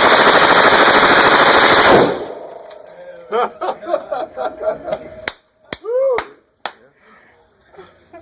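A long burst of fully automatic gunfire that cuts off abruptly about two seconds in.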